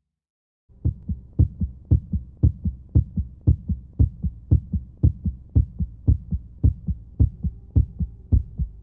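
A heartbeat sound: low beats in lub-dub pairs, about two pairs a second, starting just under a second in over a faint steady hum.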